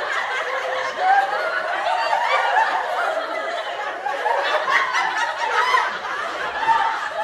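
Laughter, with overlapping high-pitched voices, running on without a break.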